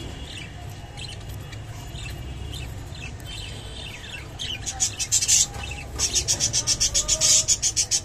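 Caged birds chirping: faint short chirps at first, then from about halfway a loud, rapid run of high, sharp chirps, about eight to ten a second. A steady low hum runs underneath.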